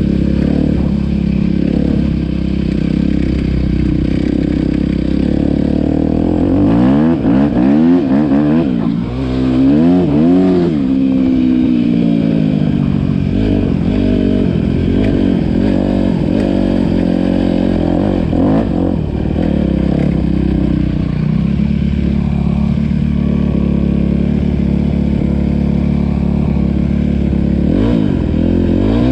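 Yamaha WR250R's single-cylinder four-stroke engine running through an Akrapovic exhaust. It idles steadily and is revved several times in quick succession about seven to eleven seconds in, with a few smaller blips a little later and another rev near the end.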